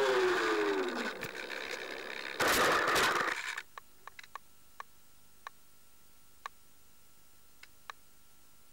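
Bixler 3 RC plane's electric motor whining down in pitch as the throttle is cut, then a short, loud scraping crash about two and a half seconds in as the plane hits and skids across grass on a bad landing. After it stops there are only scattered faint clicks over a faint steady tone.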